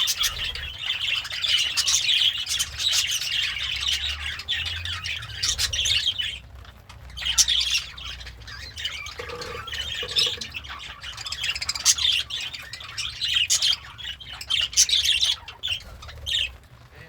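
Budgie chattering and warbling, a fast run of chirps, clicks and harsh squawks, with a brief lull about six and a half seconds in.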